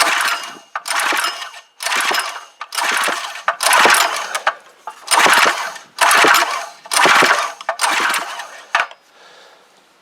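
Recoil pull-starter of a Clarke petrol pressure washer's small engine being yanked about nine times in quick succession, each pull a short rasping whirr, cranking the engine without it firing during a compression test; the pulls stop near the end. The gauge reads only 30 psi, a lack of compression the owner puts down to worn piston rings.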